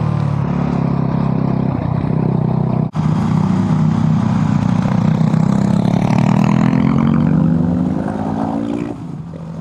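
Motorcycle engine running under way, heard on board, its pitch easing up and down with the throttle through a bend, with wind noise over it. There is a momentary break about three seconds in, and the engine drops quieter near the end.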